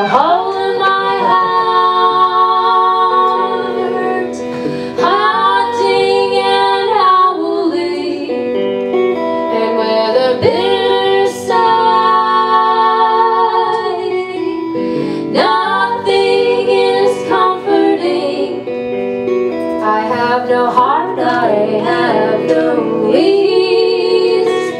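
Live song: a woman singing long, held notes with vibrato over an electric guitar, in phrases a few seconds long.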